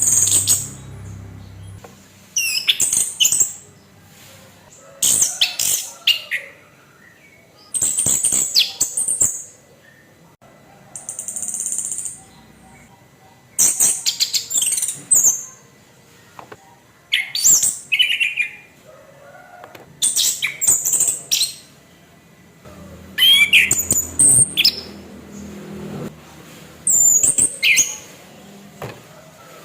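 Orange-headed thrush (anis kembang) singing: short, loud, high-pitched song phrases, about ten of them, each roughly a second long with brief pauses between.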